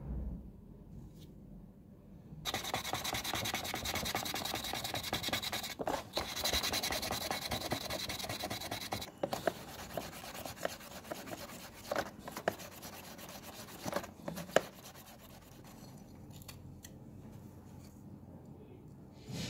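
Sanding the plastic clock base where a crack was filled with plastic powder and super glue. Dense scratchy rubbing starts about two and a half seconds in and goes on for some six seconds, then turns softer with a few sharp clicks before dying down.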